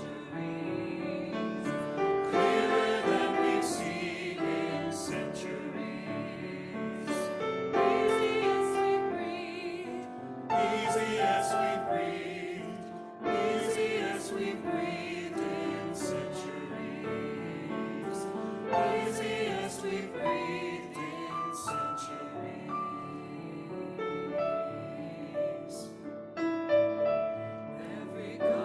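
Choir singing a song in harmony, several voice parts together.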